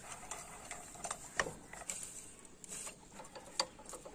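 Scattered light clicks and taps of a hand tool against a motorcycle engine and its fittings, irregular, with sharper knocks about a second and a half in and again near the end.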